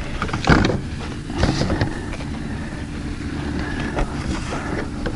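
Black corrugated plastic drain pipe being handled and pushed together, giving a few short clicks and scrapes, over a steady low rumble.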